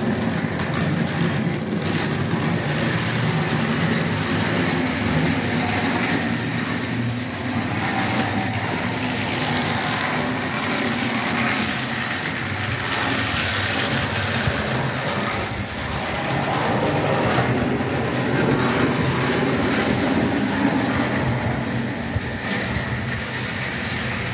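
Model steam tram locomotive and its wagons running along the track, a steady rolling rumble of small wheels on the rails with a thin high whine over it.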